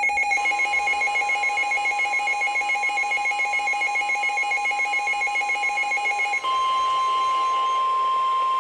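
A Midland NOAA weather radio receiver's electronic alert alarm, a rapid pulsing two-pitch beep. About six and a half seconds in it gives way to the loud, steady 1050 Hz NOAA Weather Radio warning alarm tone that comes before a new warning broadcast.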